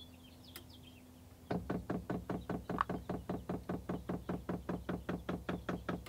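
Diesel heater's fuel dosing pump ticking in a fast, even run of clicks, roughly seven a second, starting about a second and a half in: the pump is priming the fuel line.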